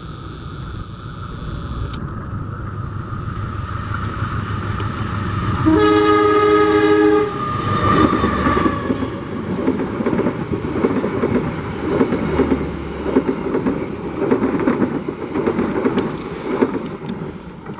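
A train approaching and passing, its engine drone building for several seconds, then a horn blast of about a second and a half some six seconds in. After the horn, the wheels clatter rhythmically over the rail joints as the cars go by.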